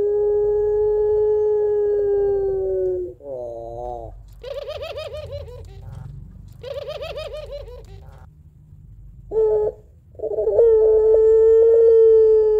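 Puter pelung, a domestic ringneck dove, giving its long drawn-out 'crying' coo: a held note that slowly falls in pitch. In the middle come a short wavering note and two rolling, trilled coos, then the long coo starts again about ten seconds in.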